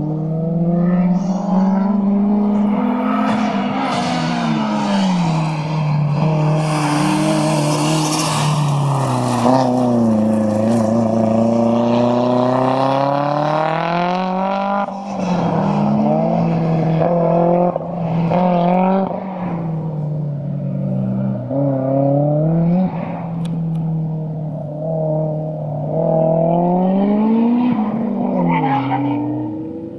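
A car's engine driven hard through an autocross cone course, its pitch climbing and dropping over and over as the driver accelerates, lifts and brakes between the cones. Tyres squeal in the turns, most strongly about seven to ten seconds in.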